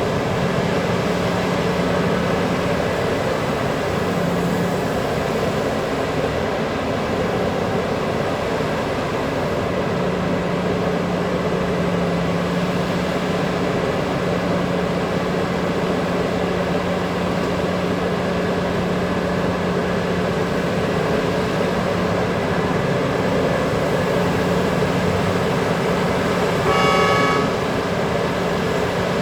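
Heavy diesel mining machinery, a large hydraulic excavator loading a haul truck, running steadily with a constant low drone. Near the end there is one short horn blast, the kind used to signal between excavator and truck during loading.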